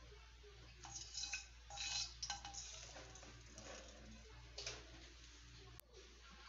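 Plastic slotted spatula scraping and knocking against a non-stick wok, several short scrapes about a second in, another pair about two seconds in and one more near the middle, over a faint steady hum.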